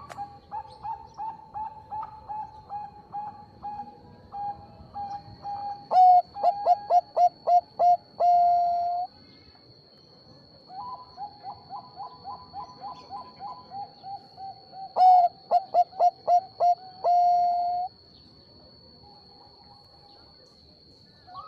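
Zebra dove of the Thai-bred 'Bangkok' strain (perkutut) singing two song phrases. Each phrase is a quick run of short coos that builds to a few loud notes and ends in one long held coo.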